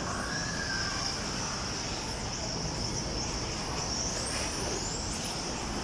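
Electric RC touring cars with 13.5-turn brushless motors racing on the track: faint high-pitched motor whines rise and fall a few times in the second half over a steady hiss of tyres and running gear. A steady high insect chirr sits underneath.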